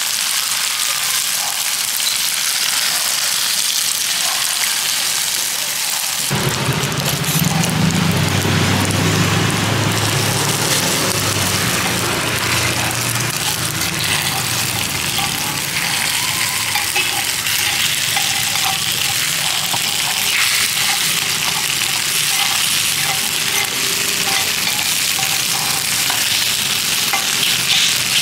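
Egg batter frying in a hot multi-cup metal mould pan, a steady sizzling hiss. A low rumble joins in about six seconds in.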